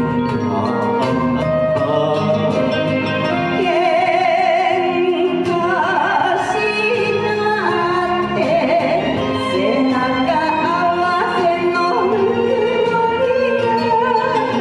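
Enka duet sung by a woman and a man into microphones over a karaoke backing track, the sung notes wavering in strong vibrato.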